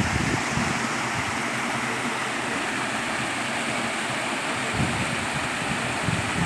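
Waterfall water rushing in a steady, even roar, with wind buffeting the microphone in low gusts near the start and again about five seconds in.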